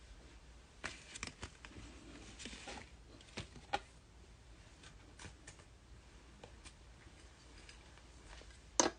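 Trading cards being handled and set out on a table: scattered light clicks and taps, with one sharper click near the end.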